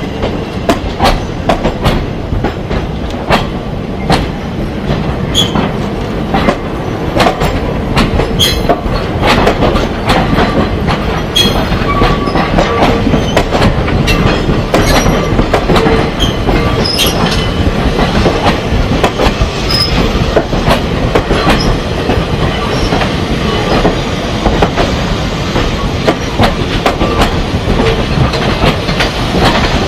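A steam-hauled train of goods wagons rolling over jointed track: a continuous loud rumble with an irregular clickety-clack of wheels over the rail joints. Now and then a wheel gives a short, high squeal.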